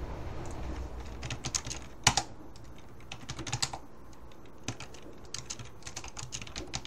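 Typing on a computer keyboard: runs of quick key clicks, with one louder keystroke about two seconds in.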